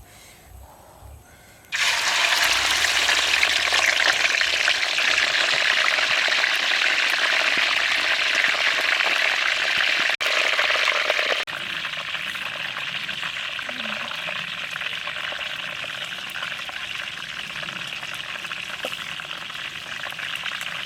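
Chicken frying in hot oil: a loud, steady sizzle that starts abruptly about two seconds in, then drops to a softer sizzle a little past halfway.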